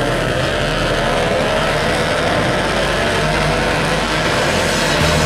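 A pack of motorcycle-engined cross cars racing on a dirt track. Many engines run at high revs together, their pitches wavering up and down as the drivers shift and throttle through the corner.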